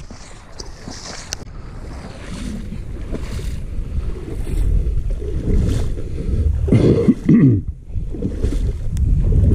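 Wind buffeting the camera microphone as a low, uneven rumble that grows louder, with water sloshing in the shallow marsh. About seven seconds in there is a short, louder sound with a few falling low tones.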